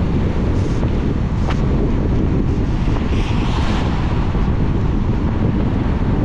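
A car driving in the rain: steady road and tyre noise on wet tarmac, with wind rumbling on the microphone. About three seconds in, a brighter hiss swells for roughly a second.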